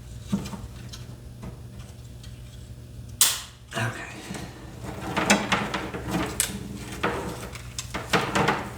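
Plastic parts of an original Xbox controller being handled and prised apart: scattered small clicks and rattles, with one sharp snap a little over three seconds in as a clipped piece comes loose.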